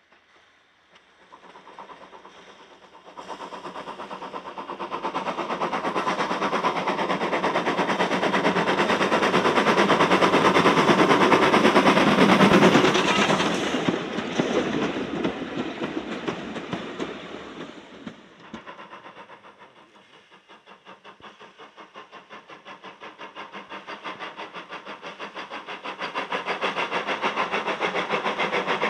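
Small steam tank locomotive working towards and past, its exhaust beats rising to a peak about twelve seconds in, followed by vintage carriages rolling by and fading away. From about twenty seconds a steam locomotive's steady, even chuffing builds up again.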